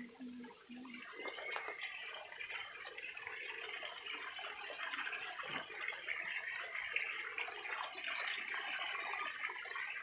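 Water pouring from a hose into a shallow tarpaulin-lined pond, splashing steadily on the surface; the splashing grows louder about a second in.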